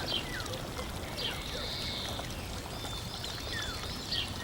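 Birds chirping, with short calls and quick falling whistles repeating throughout, over a steady rushing sound like flowing water.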